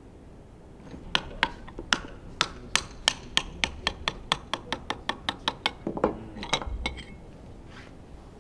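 Small metal hand tool tapping and clicking against a piston from the Honda RA100E V10: about twenty sharp metal-on-metal taps that speed up from about two to about five a second, then a brief clatter of parts with some ringing.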